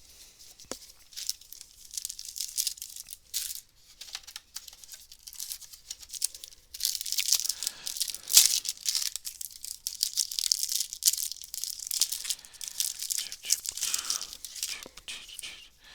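A trading card booster pack's wrapper being torn open and crinkled, with the cards inside rustling as they are handled. The crackling is sparse at first and gets denser and louder through the middle.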